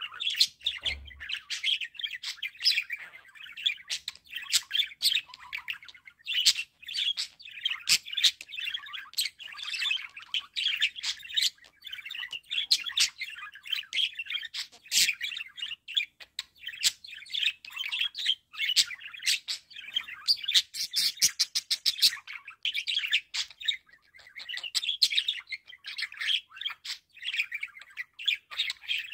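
Budgerigar warbling: a steady, busy stream of chirps, chatter and squawks, with a quick run of clicking about two-thirds of the way through.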